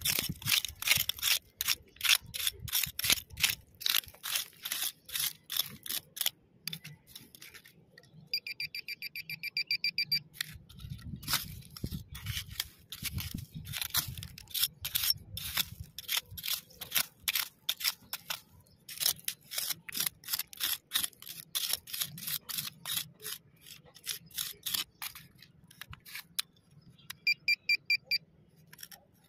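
A small hand tool scrapes and chips at gravelly, stony soil in quick, repeated strokes. Twice, once about eight seconds in and again near the end, a metal detector gives a fast pulsing electronic beep, the sign that metal is close by.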